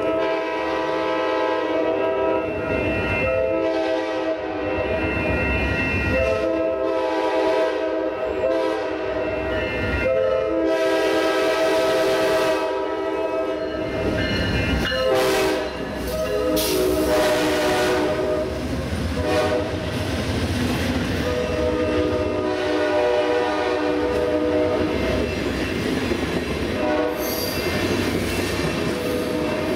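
Air horn of an Amtrak GE P42 diesel locomotive sounding a long series of blasts with short breaks between them. The passenger train rumbles and clatters past at street level.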